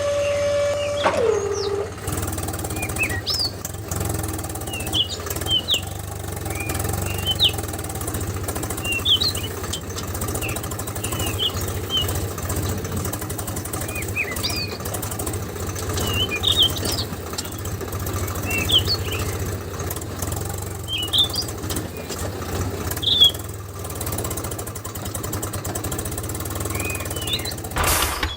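Small birds chirping in short, scattered calls over a steady low hum. At the start a held tone drops in pitch and stops.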